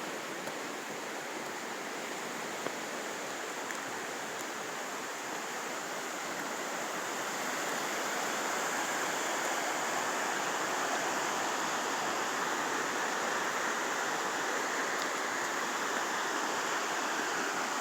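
Waterfall rushing steadily over rock ledges, growing a little louder about halfway through.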